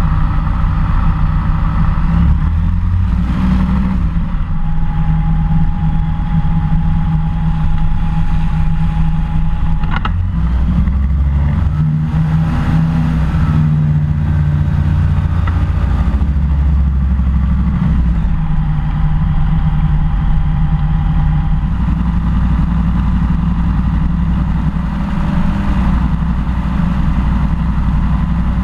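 SeaRey amphibian's pusher engine running steadily as the seaplane taxis on the water.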